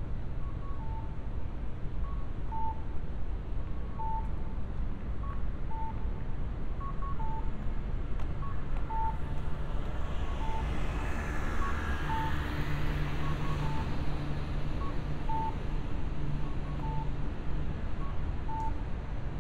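Audible pedestrian crossing signal at a green light: short electronic beeps about every one and a half seconds, answered by fainter, higher beeps. A car passes about halfway through, over a low traffic hum.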